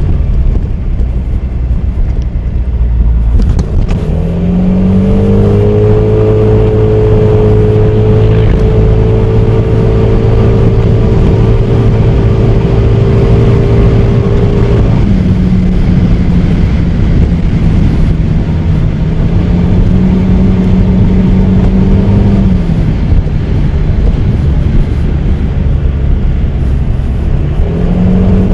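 Honda Forza 300 scooter's single-cylinder engine running under way, with low wind and road rumble. The engine pitch rises about four seconds in and then holds steady, shifts about halfway through, falls back near the three-quarter mark and rises again at the end.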